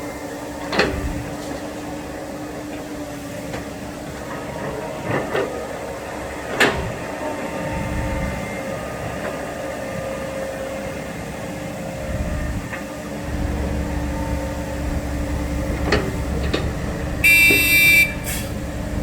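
Dump truck engine running at a sand pit, its low rumble growing louder about two-thirds of the way through, with a few sharp knocks. A brief shrill high tone sounds near the end.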